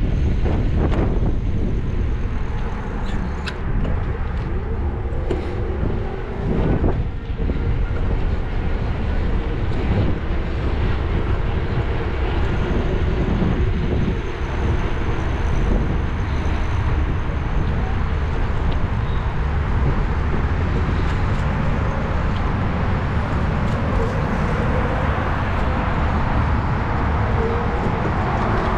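Car driving along a city street: steady road and engine noise, with a faint tone that rises slightly near the end.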